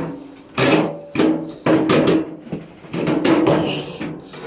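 A run of loud clunks and rattles, about four of them, each with a brief metallic ring, as of metal parts being knocked and handled.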